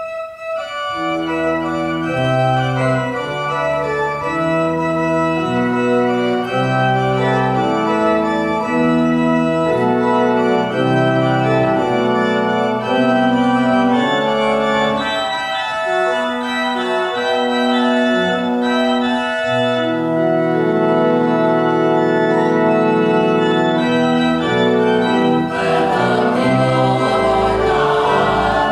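Wicks pipe organ playing a run of sustained, changing chords: the organ introduction before the choir comes in.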